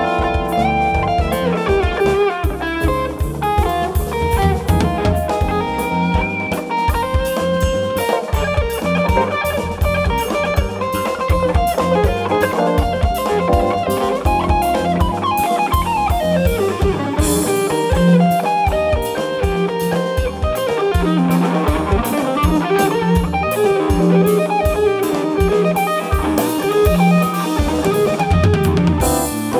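Live band playing an instrumental passage: electric bass guitar and guitar over a drum kit, with quick melodic runs and cymbal crashes about seventeen seconds in and again near the end.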